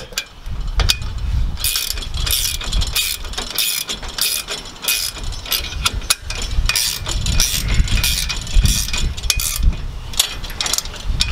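Ratcheting 5/8-inch wrench clicking in repeated short strokes as it tightens a nut onto a bolt.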